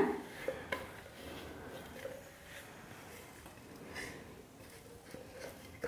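Faint, occasional soft knocks and scrapes of a stainless-steel mixer-grinder jar as the ground sesame-and-jaggery mixture is tipped and emptied out onto a steel plate.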